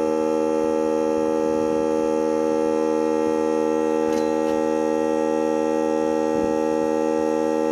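Air compressor running steadily with a constant hum while it pumps air into a car tire through the hose.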